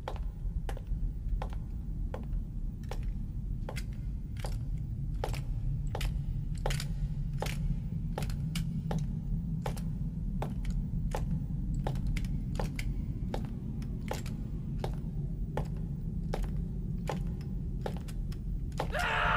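Footsteps ringing out on a stone floor at a steady walking pace, about two or three steps a second, over a low rumbling drone. A music cue swells in just before the end.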